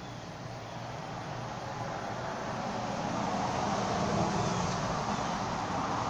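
Harbor Breeze Calera II ceiling fan running, a steady whoosh of the blades with a low motor hum, growing louder over the first few seconds and then holding.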